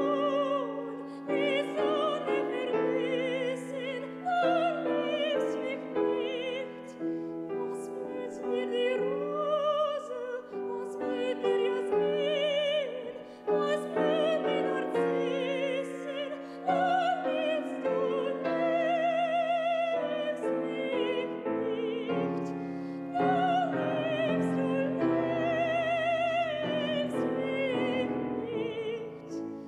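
Female classical singer singing a German art song with vibrato, accompanied by a Steinway grand piano.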